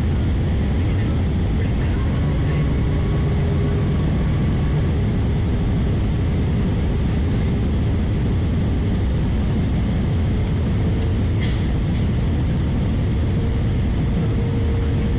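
Steady roar of engine and airflow noise inside the cabin of an Airbus A320-214 with CFM56 turbofan engines, holding an even level throughout with a few faint steady tones above the low rumble.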